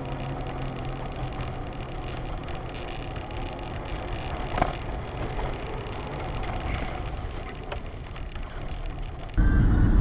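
A vehicle's engine and road noise, steady and fairly even, with one short sharp click about halfway through. Near the end it cuts abruptly to a much louder, deeper rumble.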